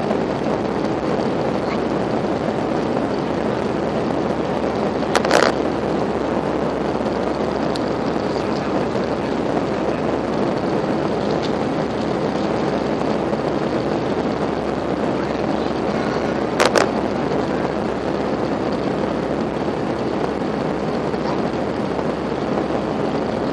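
Steady engine and airflow noise heard inside the cabin of an Airbus A320, with two brief knocks about five and seventeen seconds in.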